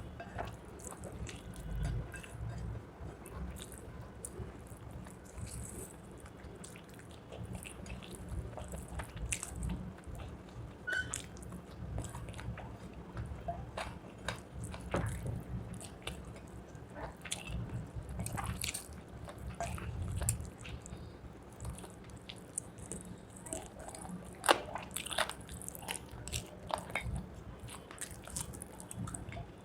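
Close-up eating sounds of rice with chicken leg curry: chewing and biting with wet, smacking mouth noises and many small irregular clicks, with one sharper, louder click about three-quarters of the way through.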